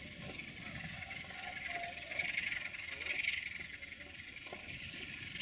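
Outdoor chorus of calling animals, swelling about two seconds in, over a faint low rumble from a Sulzer-engined LDE2100 diesel locomotive drawing slowly into the station.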